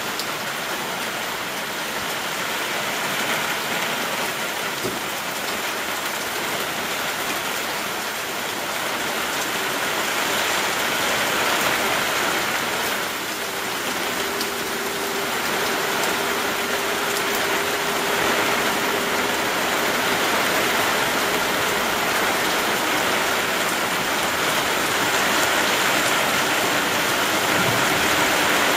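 Heavy rain falling steadily, a dense even hiss of drops on the ground and surfaces. Midway a faint steady hum sounds under it for several seconds.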